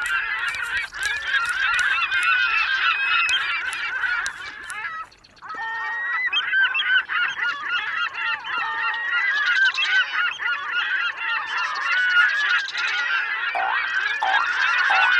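A large flock of birds calling all at once, many overlapping calls that run together, with a brief drop-out about five seconds in before the calling resumes.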